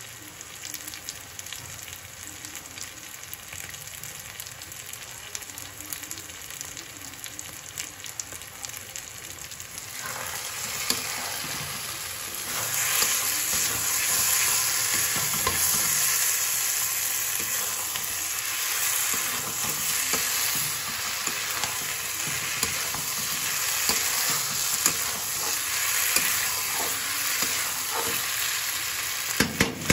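Cauliflower and pea masala sizzling in a kadhai while a metal spatula stirs and scrapes it against the pan. The sizzling grows clearly louder about ten to twelve seconds in, once the stirring gets going, and there are a few sharp knocks of the spatula near the end.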